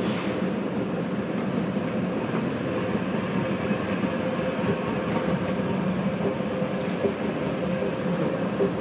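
Escalator running with a steady mechanical hum and rumble, heard from on the escalator over the general noise of a large, echoing terminal hall.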